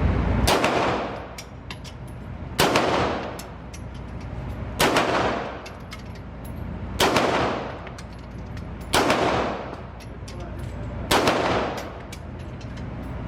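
Pistol shots in a gun range, six loud cracks at a steady pace of about one every two seconds, each with a long echoing tail. Fainter, sharper shots sound in between.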